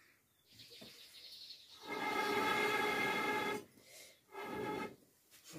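A horn blowing one long, steady note, held for about a second and a half and starting about two seconds in.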